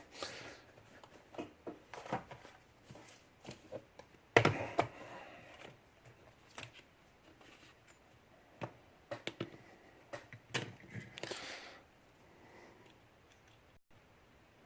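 Scattered clicks and knocks of a lock, its key and a pinning tray being handled and set down on a bench, with one louder knock about four seconds in.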